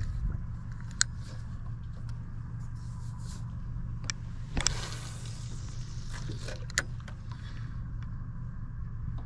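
A spinning rod cast about four and a half seconds in: a quick swish as the rod whips and the line flies off the spool. A couple of sharp clicks from the rod and spinning reel being handled, over the steady low hum of the boat's engine.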